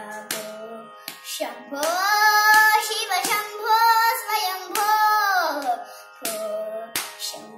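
A young girl singing a Carnatic devotional song in long, ornamented phrases that bend in pitch, over a steady drone. A few soft hand slaps keep the tala.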